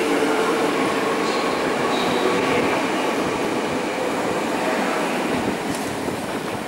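NS yellow double-deck electric train passing close by and moving away on the track: a steady rumble of wheels on rail, with a faint steady hum from the train's motors.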